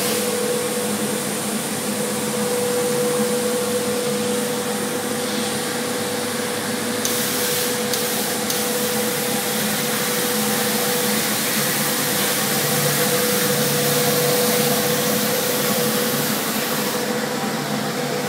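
Suction-feed sandblasting cabinet running: a steady loud hiss of the air and abrasive blast, with a constant hum underneath. The hiss shifts briefly around seven to eight seconds in.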